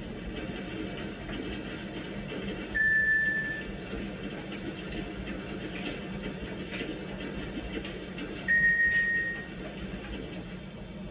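Two short, high single-pitch electronic beeps, each under a second long and about six seconds apart, over a steady hum and hiss.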